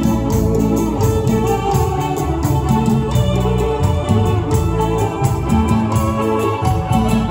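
Live band music: an electronic keyboard with an organ sound holding chords over a bass line and a steady drum beat.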